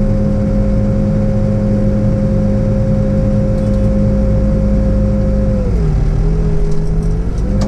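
New Holland B95 backhoe's diesel engine running steadily at high revs. Near the end its pitch sags for about a second and a half, then picks back up.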